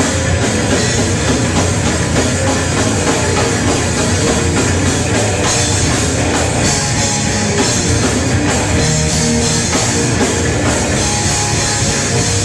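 Live heavy metal band playing loud, with distorted electric guitars over a pounding drum kit.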